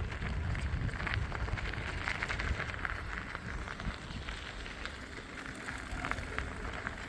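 Vehicle moving slowly over a gravel yard: a steady low rumble with scattered crackles.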